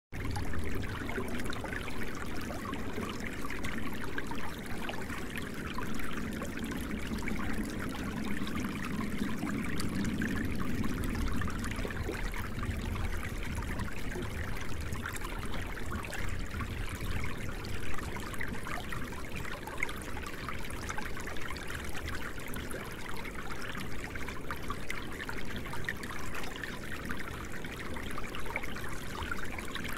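Running water of a stream, trickling steadily without a break.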